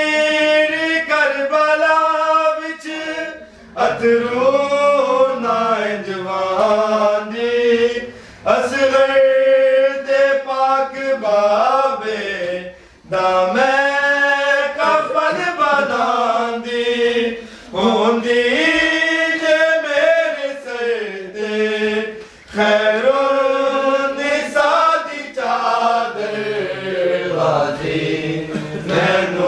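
Male voices chanting a nauha, a Shia mourning lament, with no instruments, in long, wavering sung phrases of about four to five seconds, each followed by a short breath pause.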